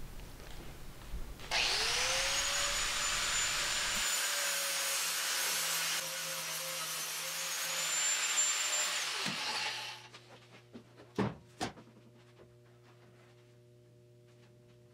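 Small angle grinder spinning up and grinding down a fresh weld bead on a steel rocker panel: a steady grinding noise with a high whine that starts about a second and a half in and winds down after about eight seconds. Two sharp knocks follow about half a second apart.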